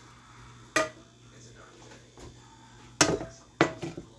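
Four sharp knocks of a metal frying pan against the stovetop and cookware, one about a second in and three close together near the end, the first two with a short metallic ring.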